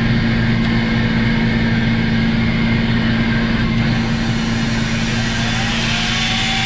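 A running motor's steady, loud drone. A faint higher whine comes in about five seconds in.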